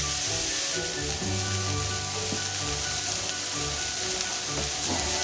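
Chopped vegetables sizzling in oil in a frying pan, a steady hiss.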